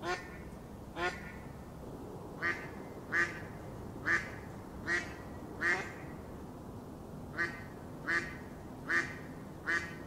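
Mallard quacking: a run of short single quacks at about one a second, eleven in all, with a pause of well over a second just past the middle.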